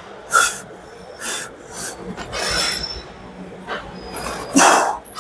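A person's short, forceful breaths, about five in a row at uneven intervals, the loudest near the end.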